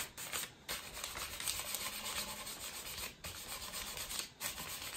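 220-grit sandpaper rubbed quickly back and forth over the edges of a wooden chair back with an old stained finish, feather-sanding the rough edges smooth. A steady hiss of abrasive on wood, broken by a few brief pauses.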